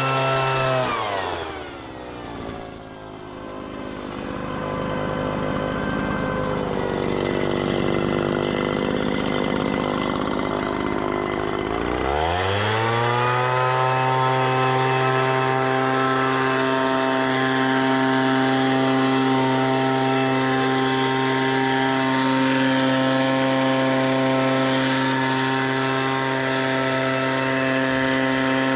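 Echo PB-400E backpack leaf blower's two-stroke engine running: about a second in the throttle drops and it falls to a low idle, then at about 12 seconds it revs back up and holds steady at high speed. The engine runs to the owner's satisfaction after repairs.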